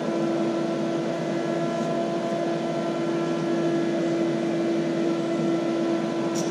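Mosquito Magnet Patriot Plus trap's fan running with a steady, constant hum during its cooling (evacuation) cycle after the burner has been shut off.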